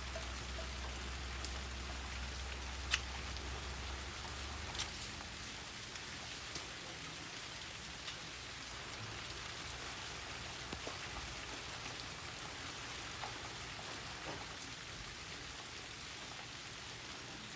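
Steady rain falling in a garden, with individual louder drops ticking sharply now and then. A low hum underneath stops about five seconds in.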